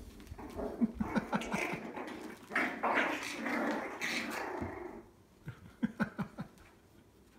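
Cavoodle puppies growling while they play-fight, a rough rasping growl lasting about four seconds, then a few short sharp sounds near the end.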